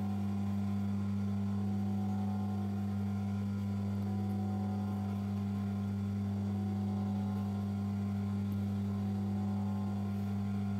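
Steady electrical hum with an even, unchanging low tone and no stitching strokes.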